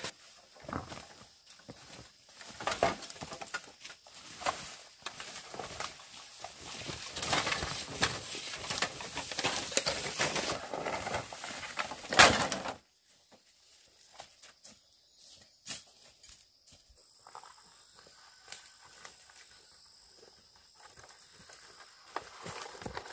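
Dry bamboo leaves and undergrowth rustling and crackling as a person pushes through and handles a bamboo pole, with many knocks and one loud sharp knock about twelve seconds in. After that it drops suddenly to a quieter stretch of light footsteps and small rustles.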